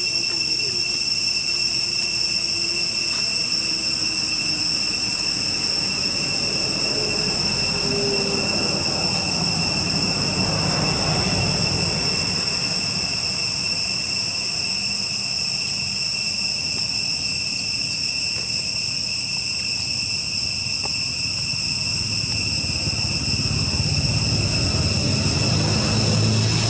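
A steady, high-pitched insect chorus drones without a break. Underneath, a low rumble swells about midway and again near the end.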